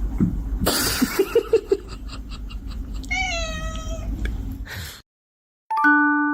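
A cat meows once, a drawn-out call about three seconds in that falls slightly in pitch, after a burst of noise and a few short sounds. Near the end the sound cuts off and chiming mallet notes begin.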